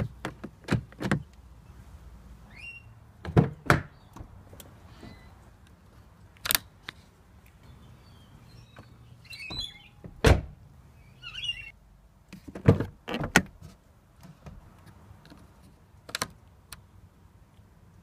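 Volkswagen Touareg rear door being worked: the chrome inside handle pulled and the door latch and panel giving a string of sharp clacks and several heavy thunks, about ten in all, spread out with pauses between.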